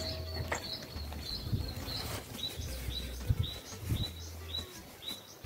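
A bird chirping over and over, a short high note about twice a second, with a few soft knocks and handling sounds underneath.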